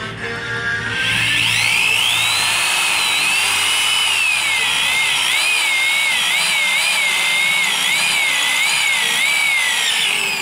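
Electric drill boring through a thin sheet-metal bracket, starting about a second in; the bit cutting the steel gives a high whine that wavers up and down in pitch.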